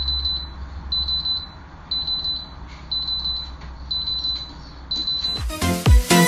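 Electronic alarm beeping: a high-pitched beep pattern repeating about once a second over a low steady hum. Music with a strong beat cuts in near the end.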